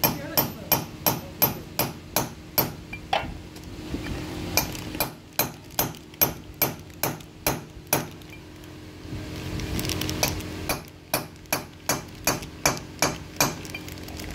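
Hammer striking a steel drift to drive a valve guide into a Honda Shine's cylinder head: quick, even metallic blows, about three to four a second, in three runs with short pauses between.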